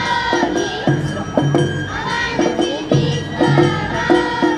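Awa Odori dance music played live, with drums beating a brisk, steady rhythm, a small metal gong clanging and flutes gliding between notes.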